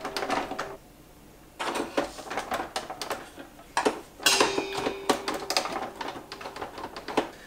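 Irregular clicking and clattering of metal kitchen utensils against a stainless steel stand-mixer bowl, pausing briefly about a second in.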